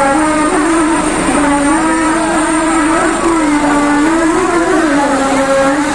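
Light helicopter with a ducted tail rotor running on the ground just after landing: a steady drone whose pitch wavers up and down.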